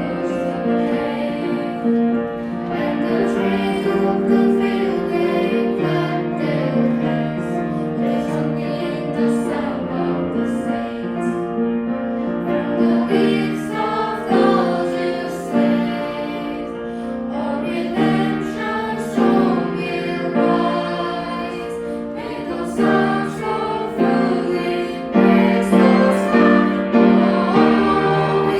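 Worship song with a singing voice carrying the melody over piano accompaniment.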